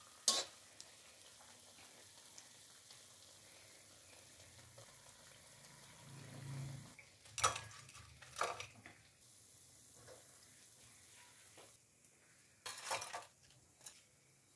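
Jaggery-batter fritters deep-frying in oil in a karahi, giving a faint steady sizzle. A few sharp clinks of a metal wire skimmer come about halfway through and again near the end, as the fritters are lifted out.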